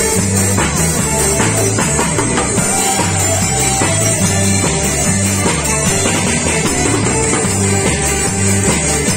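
Live band playing an instrumental passage: a drum kit keeps a steady beat under electric guitar and violin, over a repeating bass line.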